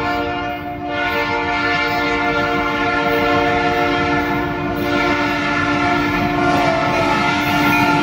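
Multi-chime air horn of KCSM EMD GP38-2 locomotive 2064 held in long, almost unbroken blasts as part of a horn show, with a short break about a second in. The rumble of the approaching train runs underneath.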